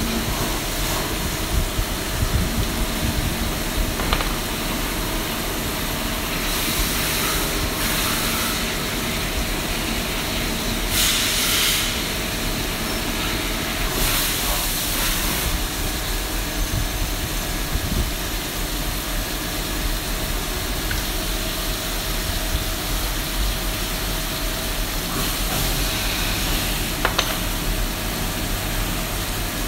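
CNC machining center milling metal workpieces under flood coolant: steady machine hum with splashing coolant hiss, and several stretches of louder high hiss.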